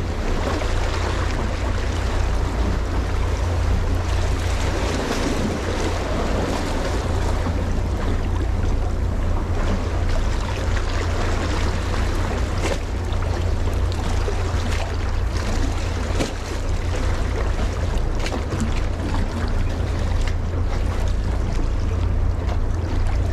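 Steady wind buffeting the microphone with a low rumble, over a continuous wash of waves at the shore.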